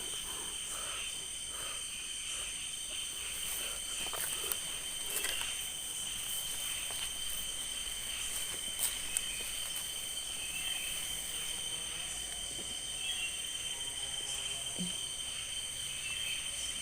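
Night insect chorus of crickets, a steady high-pitched trilling, with faint frog croaks in the middle stretch and a few soft clicks early on.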